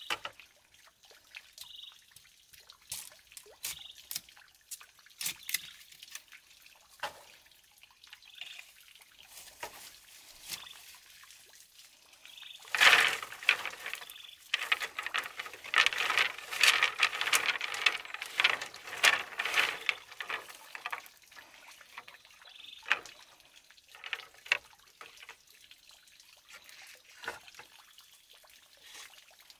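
Water pouring and trickling, with scattered small clicks and drips, busiest in a splashy stretch in the middle.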